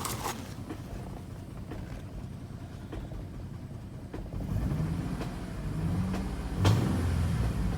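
3.7-litre V6 engine running with occasional sharp clicks over a steady low rumble, then revved up and down in waves from a little past halfway, with one louder knock near the end. The owner hears it as an engine knock he cannot yet diagnose.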